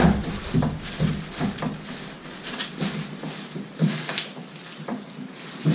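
A plastic fishing kayak and its wheeled kayak cart being handled and fitted together: a run of irregular knocks, clunks and scrapes.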